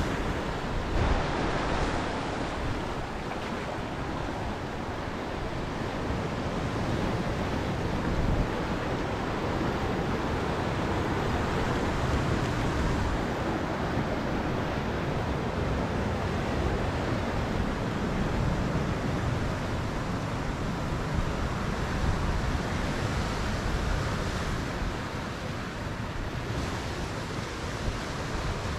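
Ocean surf washing steadily onto a rocky shore, with wind gusting over the microphone.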